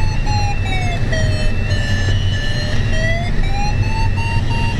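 A glider's audio variometer sounding a continuous electronic tone. The tone dips in pitch about two seconds in, then rises and holds high, following the climb rate while circling in a thermal. Under it runs a steady rush of airflow in the cockpit.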